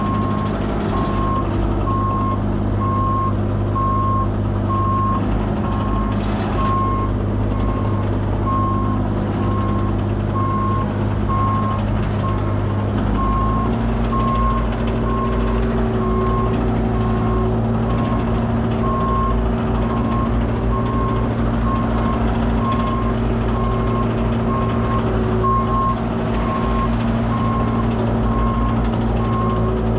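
Backup alarm beeping steadily, a bit more than once a second, over a diesel engine running, on a rollback truck or the mini excavator being delivered. The engine speed steps up slightly about 13 seconds in.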